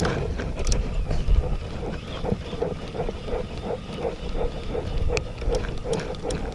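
Spinning or baitcasting fishing reel cranked to retrieve a lure: a rhythmic whir of about four or five pulses a second that settles in after a couple of seconds. Wind rumbles on the microphone throughout.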